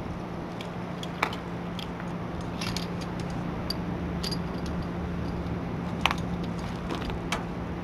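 Scattered light clicks and clinks of hose fittings being handled as a spray bar hose is connected, over a steady low hum.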